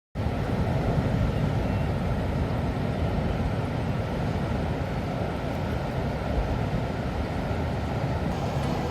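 Steady low rumble of a vehicle on the move, cutting in abruptly at the start and holding at an even level.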